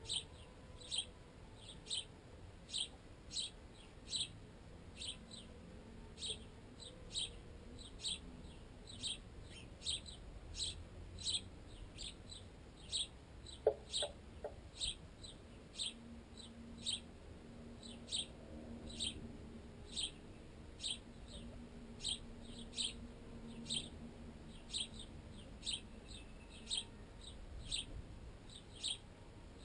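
Sparrow chirping over and over in an even rhythm, a little more than one short, high chirp a second. A single sharp knock about 14 seconds in.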